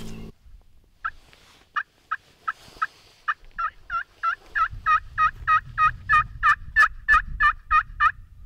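Hen-turkey yelps worked on a pot-style friction call with a wooden striker: a long run of about twenty yelps, sparse at first, then about three a second and growing louder. It is a calling sequence meant to draw an answering gobble.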